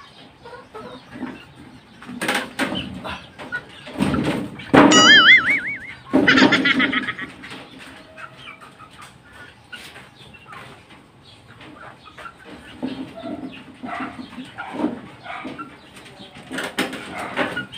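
Chickens clucking and squawking, with bursts of wing flapping, loudest about two seconds in and again between four and seven seconds.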